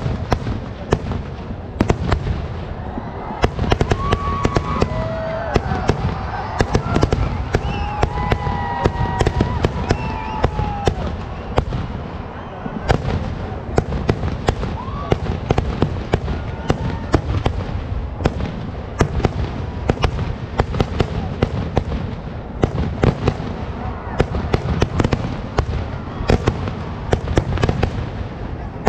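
Kerala vedikkettu fireworks barrage: a loud, unbroken string of rapid firecracker bangs and crackles with heavier explosions mixed in.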